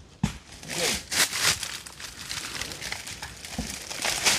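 Dry coconut palm fronds rustling and crackling, with a few sharp knocks.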